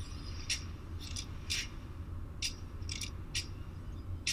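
Light metallic clicks and scrapes from a small brass padlock being handled: about seven short ones, unevenly spaced, over a low steady hum.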